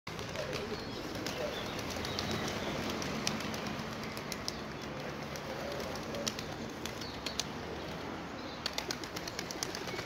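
A flock of feral pigeons feeding at close quarters, with soft cooing over a steady rustle. Scattered sharp clicks and taps come thicker in the second half.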